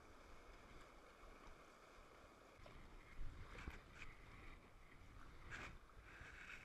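River water rushing around a kayak, with a few sharp splashes from paddle strokes from about halfway through.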